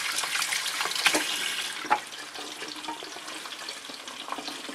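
Eggs and bacon frying in olive oil in a pan, a crackling sizzle with many small pops, louder for the first couple of seconds and then quieter. A single click about two seconds in.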